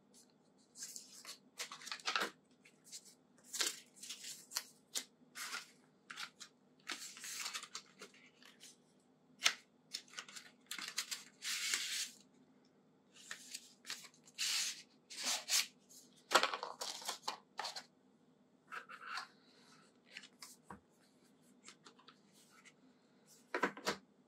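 Packaging being handled and opened: irregular bursts of rustling and tearing, with a few sharper clicks.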